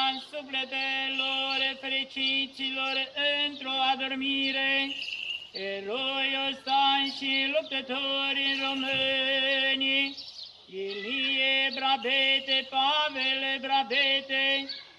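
A man's voice chanting Orthodox liturgical prayers on a near-monotone reciting note, with small steps in pitch and brief breaks for breath about 5 and 10 seconds in.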